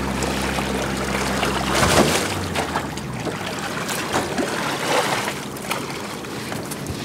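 A boat's motor idles with a steady low hum that cuts off about two seconds in. Water then splashes and sloshes at the boat's side, with a few sharp splashes, as a hooked white sturgeon is brought alongside.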